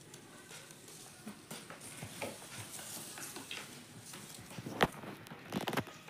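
Indian ringneck parakeet's feet tapping and scuffling on wooden floorboards as it moves about: scattered light taps, a sharp knock about five seconds in, then a quick run of taps near the end.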